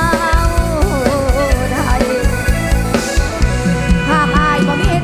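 Live band music in Isan mor lam style: a steady drum and bass beat under a wavering, bending melody line.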